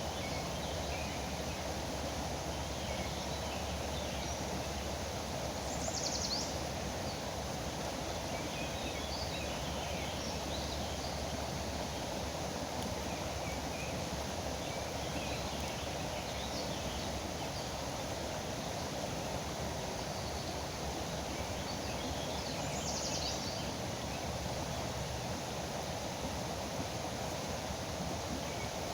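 Steady rushing of a foaming river, with scattered small bird chirps over it and two brief high bird calls, one about six seconds in and one near the end.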